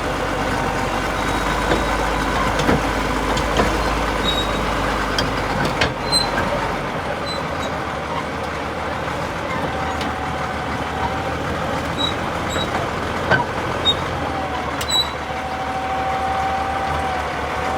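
Heavy diesel engine running steadily, with a deep drone that drops away about seven seconds in, scattered clicks, and a thin squeal twice in the second half.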